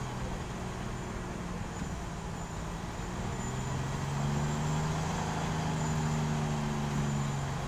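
Mobile crane's diesel engine running steadily while it lifts a wrecked truck, growing louder about halfway through.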